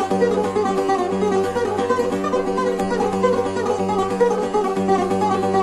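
Buzuq, the long-necked Levantine lute, playing a taqsim, an improvised solo passage: a quick run of plucked notes over a steady low drone.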